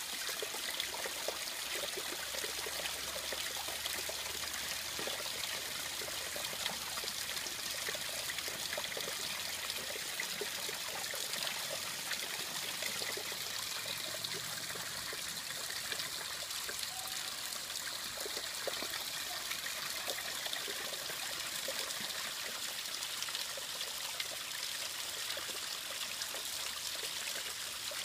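A thin stream of water trickling over a layered rock ledge and splashing into a shallow pool, a steady splashing hiss.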